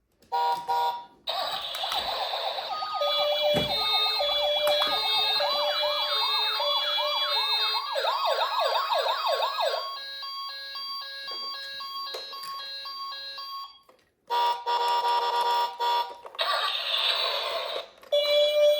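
Toy ambulance and police cars playing electronic siren sounds, more than one at once: stepped two-tone beeps over a fast, repeating rising wail. The sirens cut out for a moment about fourteen seconds in, then start again.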